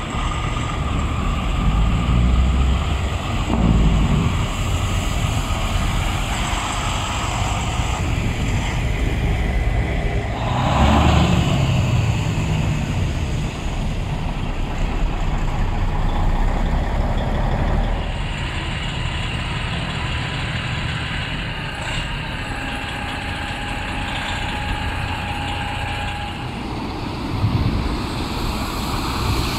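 Diesel semi trucks pulling loaded dump trailers drive past one after another with engines running and tyres on the slushy road. The loudest pass comes about eleven seconds in.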